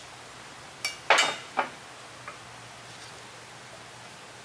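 A few sharp metallic clicks and taps, the loudest about a second in with a brief ring, as a steel circlip is worked into its groove in a control arm's spherical-bearing bore with circlip pliers. Another sharp, ringing click comes at the very end as the clip seats.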